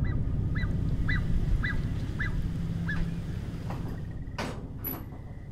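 A bird calling a short squeaky note, repeated about twice a second for the first three seconds, over a low rumble that slowly fades. A few clicks and a brief rustle come near the end.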